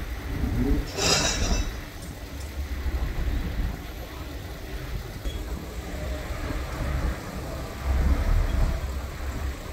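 Street traffic: vehicle engines running and passing, with a steady low rumble that swells near the end. A brief hiss comes about a second in.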